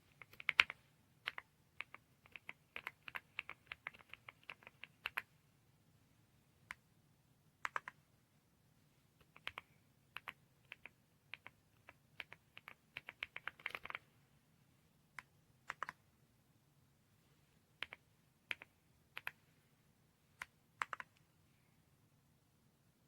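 Typing on an AULA F108 Pro full-size mechanical keyboard: runs of quick keystrokes about three and thirteen seconds in, with single key presses in between.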